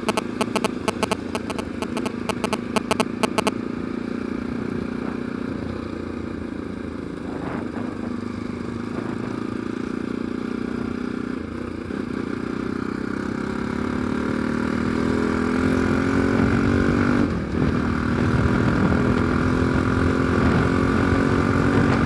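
Bajaj Pulsar NS200 motorcycle running on the road, with rapid clicking for the first three seconds or so. Past the middle the engine note rises and gets louder as it speeds up.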